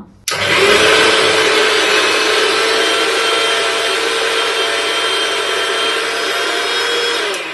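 Electric mixer grinder running, its blades grinding garlic, ginger, green chillies, coconut and cardamom with no water yet in the steel jar. A loud, steady motor whine over a grinding hiss starts about a quarter second in and winds down near the end as the motor is switched off.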